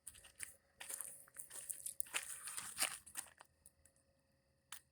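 Footsteps crunching on loose dirt and gravel, a quick uneven run of steps for about two and a half seconds that then stops, with a single click near the end.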